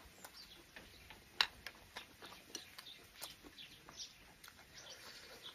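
A person chewing and lip-smacking on a mouthful of sour pickled long beans stir-fried with minced pork, making irregular wet clicks and smacks. The sharpest click comes about a second and a half in.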